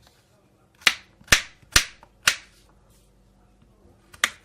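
Knife chopping vegetables on a cutting board: four sharp chops about half a second apart, a pause, then one more chop near the end. The vegetables are being cut roughly into chunks for soup.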